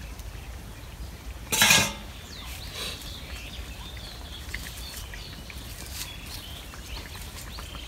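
A metal spoon clattering and scraping against a cooking pot, loudest in one brief scrape about one and a half seconds in, followed by a few small clinks.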